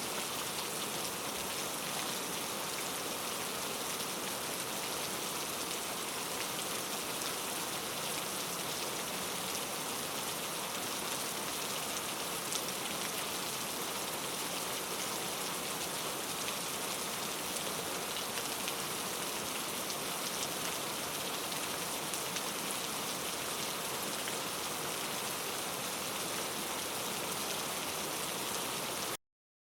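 Steady rainfall, raindrops pattering on a surface in an even hiss with small drop ticks, which cuts off suddenly into silence near the end.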